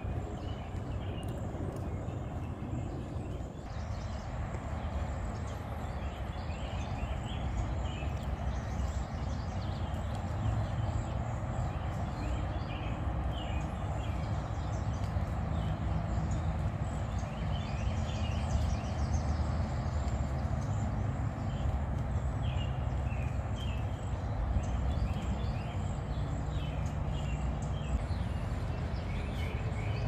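Outdoor ambience: birds chirping in short bursts over a steady low rumble.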